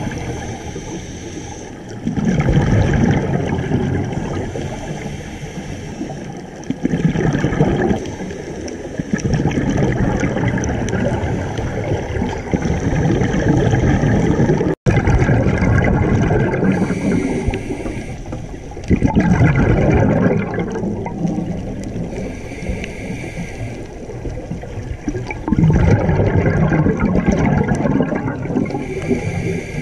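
Scuba diver's exhaled bubbles rushing and gurgling past an underwater camera housing in surges every few seconds, with quieter gaps between breaths. The sound drops out for an instant near the middle.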